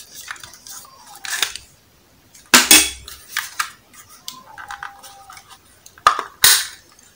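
Hard plastic case of an old mini portable speaker being handled and pried at: scattered clicks and scrapes, with a sharp snap about two and a half seconds in and two more near the end.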